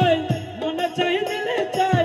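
Lively music with a drum beat, a wavering melody and jingling percussion over the top.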